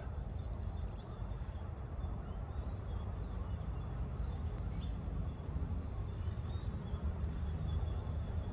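Steady low outdoor rumble with a fainter hiss above it, and a few faint short high chirps.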